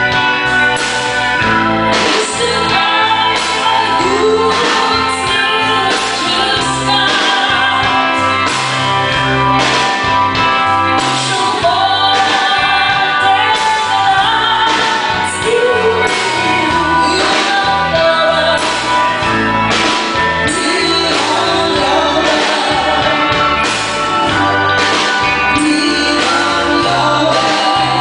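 A band playing live with a lead singer, sung melody over drums and instruments, in a large hall.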